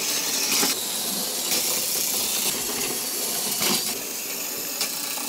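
Battery-powered Plarail toy trains running along plastic track: a steady high whirring hiss of the small motors and wheels, with a few sharp clicks about a second apart.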